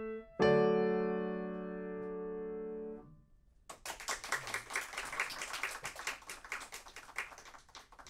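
Grand piano: a final chord struck about half a second in, held for a couple of seconds and then damped. About a second later an audience breaks into applause, which thins out near the end.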